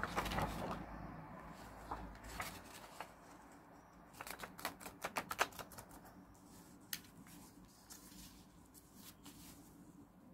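Paper and stationery handled on a desk: light rustling with scattered small clicks and taps, a quick run of them about four to five seconds in.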